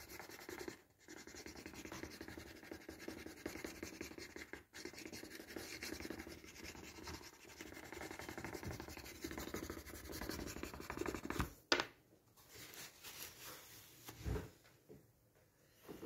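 Hand-sanding of an embossed, paprika-pigmented wooden spoon: a continuous scratchy rubbing, paused briefly about a second in and again near five seconds. It stops with a sharp click around twelve seconds, followed by quieter handling and a soft thump.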